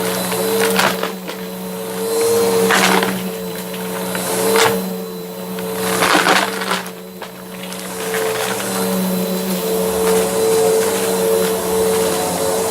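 Bissell vacuum cleaner running with a steady motor hum, its spinning brushroll crunching and crackling over debris in surges every second or two.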